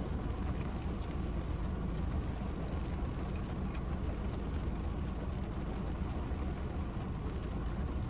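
Heavy rain pouring down steadily, with a steady low rumble underneath and a few faint clicks.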